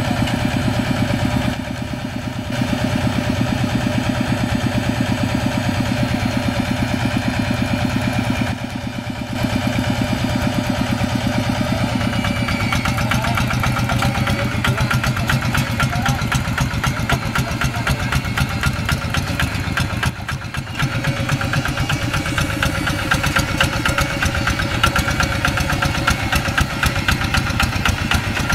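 Old single-cylinder diesel engine of a two-wheel hand tractor running steadily with a fast, even chug while it pulls steel cage wheels through wet paddy mud. The level dips briefly a few times.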